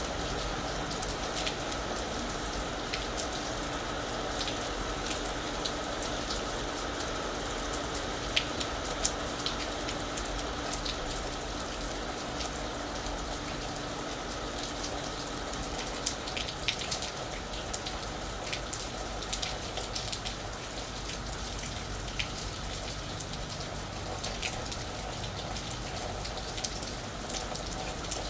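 Steady rain falling on a roof: an even hiss with many individual drops ticking sharply through it.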